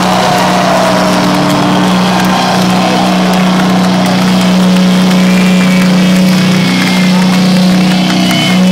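Heavy metal band playing loud and steady, a sustained low drone under it, with voices from the crowd over the music.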